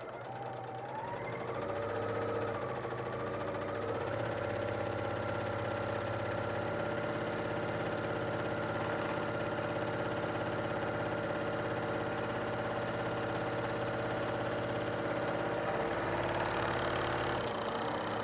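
BERNINA L 890 serger sewing a pin tuck at a steady speed: its running whine rises over the first two seconds as it gets up to speed, then holds even until the seam runs off the end of the fabric.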